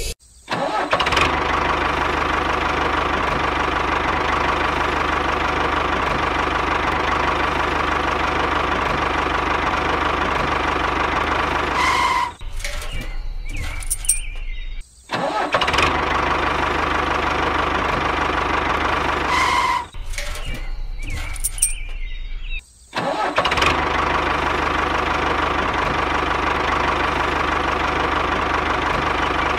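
An engine running steadily. Twice it sputters and cuts out briefly, then starts again, and the same stretch repeats almost exactly each time.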